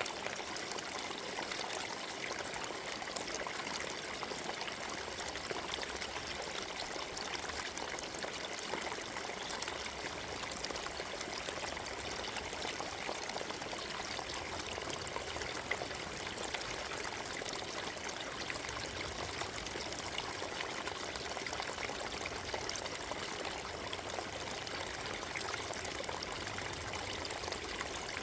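Forest stream, water flowing and trickling over stones in a steady, even rush.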